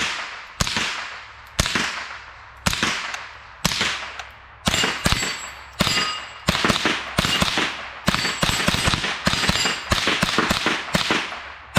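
A suppressed .22 LR gun fired in a string of about eighteen shots, each with a short ringing tail. The shots come about a second apart at first, then speed up to quicker shots and close pairs in the second half.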